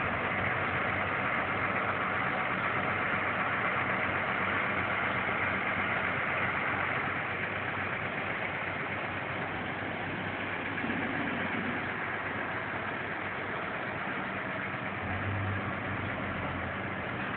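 A large engine running steadily at idle with a low, even hum.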